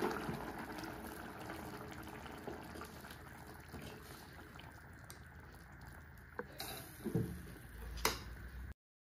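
Pot of chicken pepper rasam bubbling on the stove, the bubbling slowly dying down as the flame is switched off. A few brief knocks come near the end, and then the sound cuts off suddenly.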